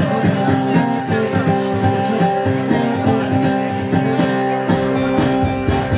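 Live bluegrass-Americana band playing the instrumental opening of a song, with sustained pitched notes over a steady rhythmic beat.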